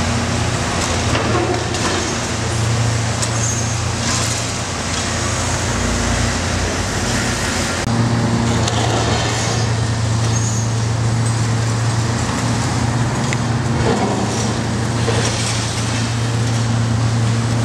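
Diesel engine of a long-reach demolition excavator running with a steady low hum, with scattered cracks and clatters of concrete breaking under its hydraulic crusher jaws.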